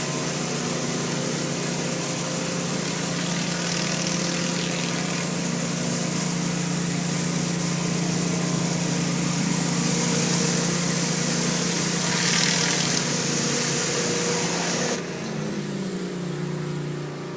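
Hot-water pressure washer running: a steady engine drone under the hiss of the spray cleaning concrete. About fifteen seconds in the spray cuts off suddenly and the engine note shifts as it runs on.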